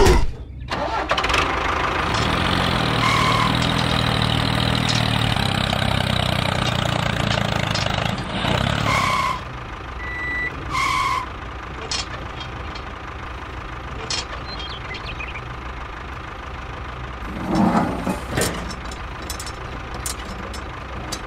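Tractor engine running at a steady idle just after starting, with a few short high beeps over it. About nine seconds in it drops to a quieter, lower running sound with occasional light clicks.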